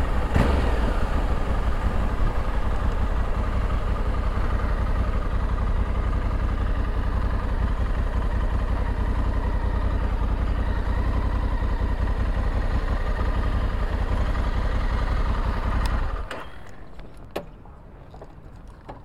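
Honda Africa Twin parallel-twin motorcycle being ridden, its engine running under a steady rush of wind on the microphone. About sixteen seconds in the noise cuts off sharply, leaving a quiet background with a few light clicks.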